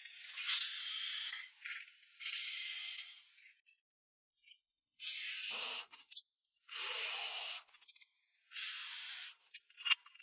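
Welding hiss in repeated bursts, each about a second long, broken by short quiet gaps, with a sharp click near the end.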